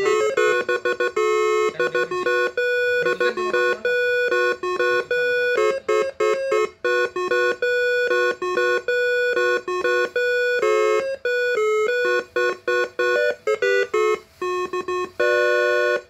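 Moreno MS9 musical air-horn module playing a koplo-style tune as rapid staccato horn notes on a few fixed pitches. The tune stops abruptly at the end.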